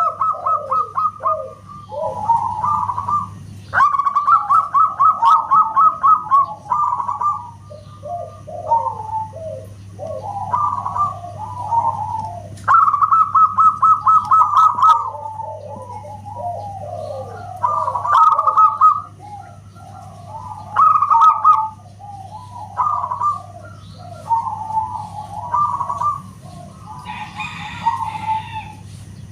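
Zebra doves (perkutut) singing loudly. Rapid trains of short staccato coo notes repeat again and again, with softer falling coo phrases overlapping between them, over a steady low hum.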